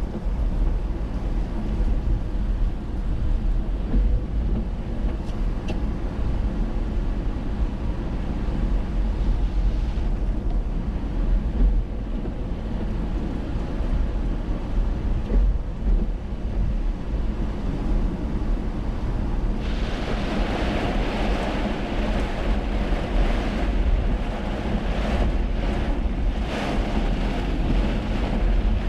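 A car driving on rain-soaked, flooded roads: a steady low rumble of engine, road and wind noise. About two-thirds of the way through, a louder hiss of tyres on water and rain comes in and swells and fades.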